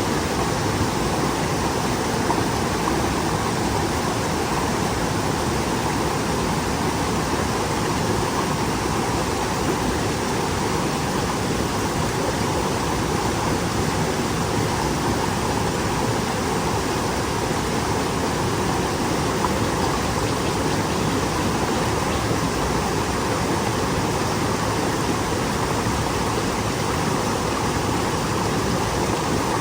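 Mountain stream flowing and babbling over rocks, a steady rush of water.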